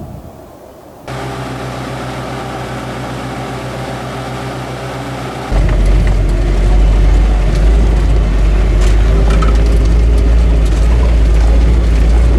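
Vehicle engine running steadily, starting abruptly about a second in; about five and a half seconds in it gives way to a much louder, deeper engine rumble.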